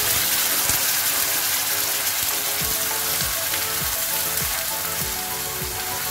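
Wet ground coconut masala paste sizzling steadily in hot oil in a nonstick frying pan, as it is stirred with a spatula. The hiss eases a little over the few seconds.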